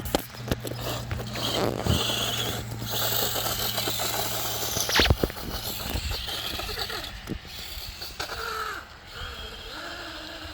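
Small electric RC car's motor and gears whirring and rattling as it drives, with a couple of sharp knocks, the loudest about five seconds in.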